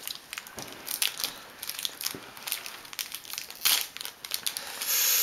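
Trading card pack wrapper being torn open and crinkled by hand: a run of short crackles, with a denser rustle near the end.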